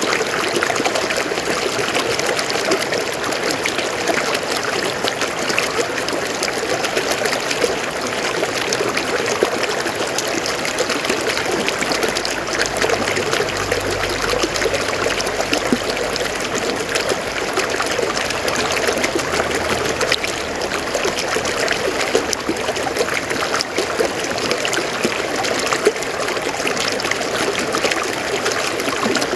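River water flowing and splashing over rocks, a steady trickling, babbling rush. A faint low rumble sits beneath it for several seconds around the middle.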